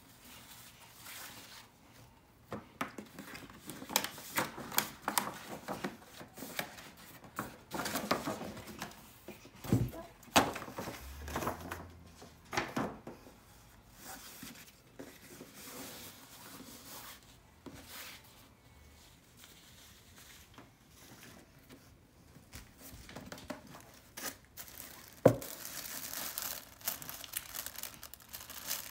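Paper and ribbon rustling and crinkling as a shopping bag and gift box are unwrapped by hand, with scattered light taps and clicks. A single sharp knock comes about 25 seconds in, followed by tissue paper crinkling.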